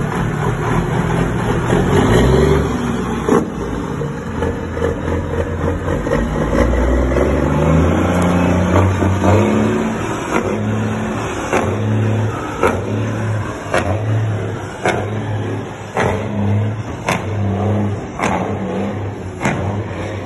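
Cummins N14 diesel in a dump truck pulling away under load, revving and rising in pitch over the first several seconds. In the second half a pulsing low drone comes with a sharp tap about once a second.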